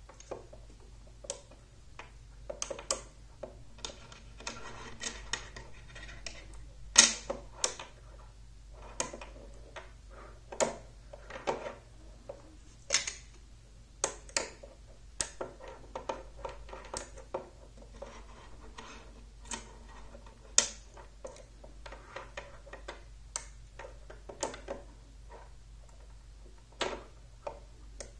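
Magnetic rods and steel balls of a magnet construction set clicking together as pieces are snapped into place: irregular sharp clicks, one louder about seven seconds in. At the start there is also a light rattle of steel balls being picked from a metal tin.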